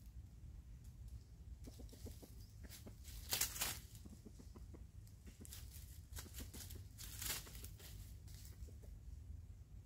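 Junglefowl rooster stepping and scratching through dry fallen leaves: a run of crisp leaf-crackling rustles, the two loudest about three and a half and seven seconds in, over a low steady rumble.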